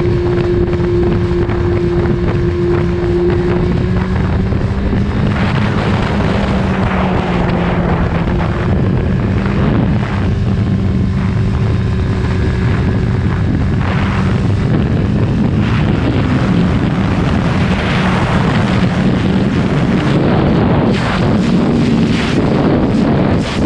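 Kawasaki ZX-14R's inline-four engine running steadily at road speed, heard from the rider's position. Wind rushes over the microphone, growing stronger from about five seconds in, with gusty buffeting and a slightly higher engine note near the end.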